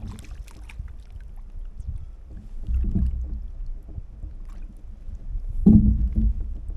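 Low rumbling and knocking of a kayak hull on the water, swelling twice: about three seconds in, and more sharply near six seconds in.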